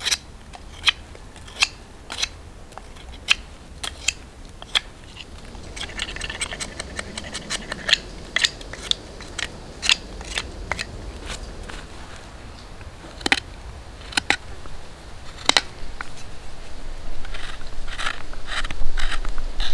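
Knife blade cutting and shaving a green wood stick: a series of sharp, crisp strokes at irregular spacing, coming faster around the middle and in quick clusters near the end.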